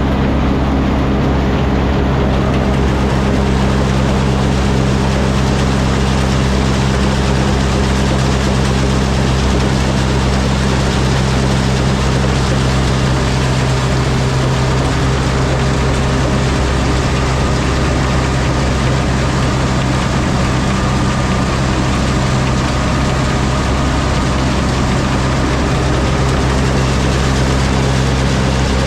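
Heavy farm machinery running steadily: a tractor engine drone with a constant low hum and no pauses or changes in speed.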